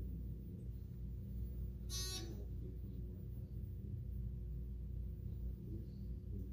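Elevator chime sounding once, short and high, about two seconds in, over a steady low hum inside the thyssenkrupp hydraulic elevator car.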